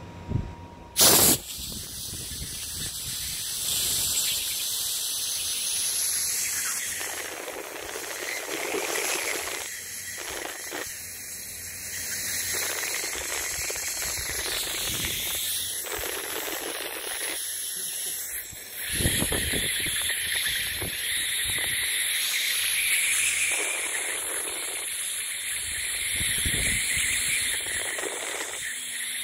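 Laser marking machine engraving characters into a metal plate: a continuous high hiss that shifts and changes as the beam traces each mark. A sharp loud click comes about a second in.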